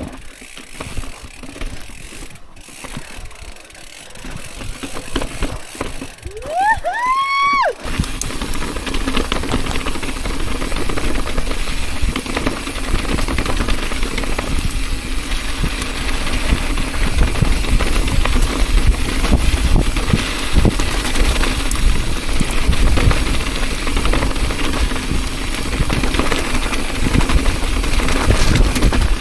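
Mountain bike riding on a rocky trail: wind rumbling on the camera microphone and tyre noise, loud and steady from about eight seconds in. Just before that, a short squeal rises in pitch and cuts off.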